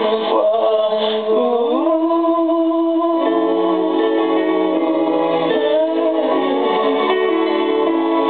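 Music: held chords with a singing voice sliding between notes over them.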